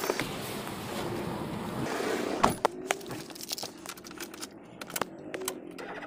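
A car door shuts with a sharp thud about two and a half seconds in, cutting off the street noise, followed by a scatter of small clicks and knocks from handling things inside the car cabin.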